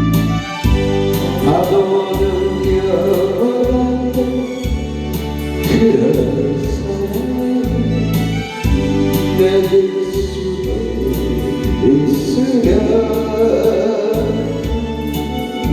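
Music: a song with a voice singing over keyboard accompaniment, its low chords changing every second or so.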